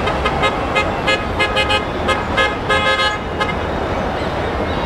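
Heavy, slow-moving city traffic with many car horns honking in short toots, thickest in the first three and a half seconds, over a steady low rumble of engines and tyres.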